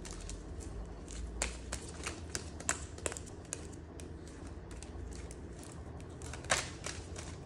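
Tarot deck being shuffled and handled: irregular light clicks and snaps of card stock, with a few sharper ones.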